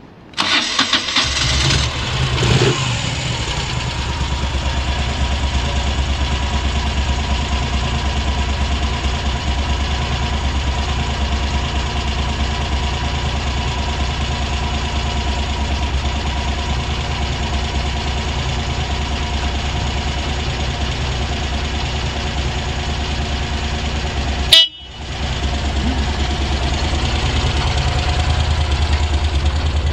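Moto Guzzi 1100 Breva's air-cooled transverse V-twin started on the electric starter, catching at once, then idling steadily with an even pulse and no odd noises. About 25 seconds in there is a short click and a brief break before the idle resumes.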